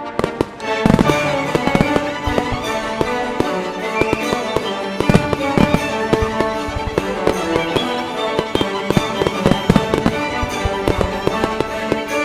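Fireworks banging and crackling in rapid succession over loud orchestral show music, the bangs coming thick from about a second in.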